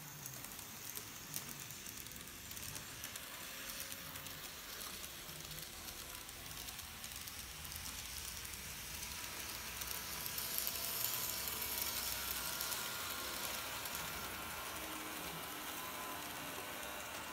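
Kato model trains, an Allegra multiple unit and a Ge 4/4 locomotive, running on the layout's track: a faint steady hiss of small motors and wheels with scattered light clicks. It grows a little louder about two thirds of the way through, then eases off.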